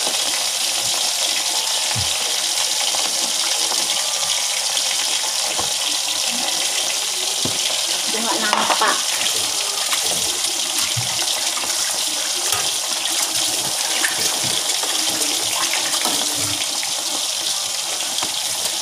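Chicken pieces deep-frying in a large wok of oil: a steady, dense sizzling hiss with scattered small crackles.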